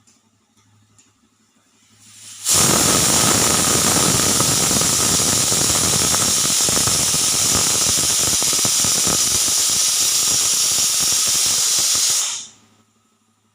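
Pressure cooker whistle blowing as the cooker vents built-up steam pressure: a loud hiss of steam that starts suddenly about two and a half seconds in, holds steady for about ten seconds, then dies away quickly.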